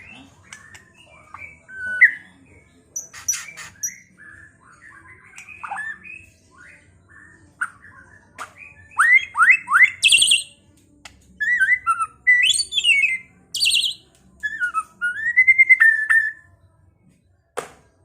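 White-rumped shama singing a varied song of whistles, chirps and quick rising sweeps, louder in the second half, with a whistled phrase that dips and rises near the end. A single sharp click comes shortly before the end.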